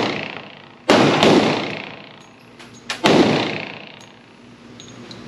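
Two pistol shots from a Glock 40 in 10mm Auto, about two seconds apart, each ringing on in the echo of an indoor range.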